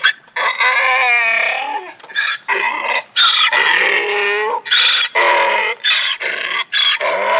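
Donkey braying: two long, drawn-out calls with wavering pitch, then a run of short, quickly repeated hee-haw notes.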